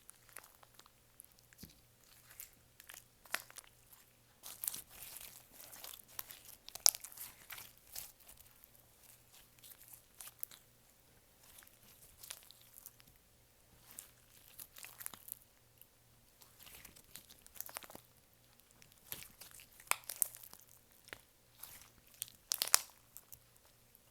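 Clear slime being worked by hand: irregular sticky crackles and small pops, with a few louder snaps.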